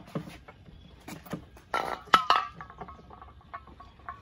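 Clicks and knocks from handling the Mercury four-stroke outboard's lower unit while it is lifted up to the midsection. A sharp clunk comes about two seconds in, with a brief buzzy squeak around it and light ticking after.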